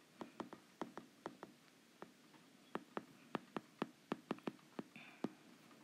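Faint, irregular clicks and taps of a stylus tip on a tablet screen while handwriting, about twenty light ticks, busiest in the second half.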